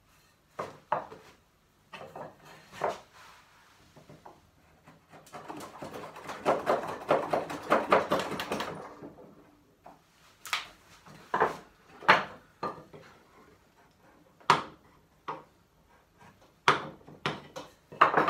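Hand-trimming the cheeks of a timber bridle joint: a few sharp knocks, then a run of rapid scraping strokes lasting about four seconds, then single sharp chisel-paring strokes on the wood.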